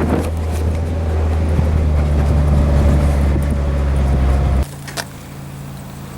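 Ford F-150 pickup running on the road, a steady low engine drone. About four and a half seconds in it drops suddenly to a much quieter idling hum, and a single sharp click follows half a second later.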